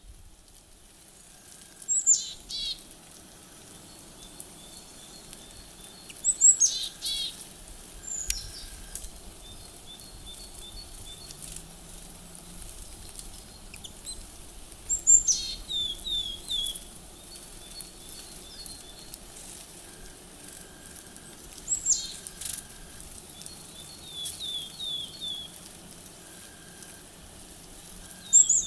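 Small birds calling: about six sharp, high calls, each sweeping steeply downward, spread a few seconds apart, with quick runs of short chirping notes after them.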